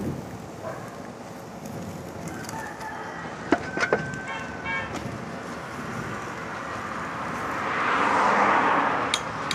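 A rooster crowing about four seconds in, over steady outdoor background noise. A broad rushing noise swells near the end and then fades.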